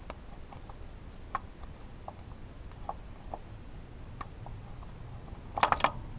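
Light, scattered metal clicks and taps as a hydraulic timing belt tensioner is worked loose and pulled out by hand. A quick cluster of louder metallic clinks comes a little before the end.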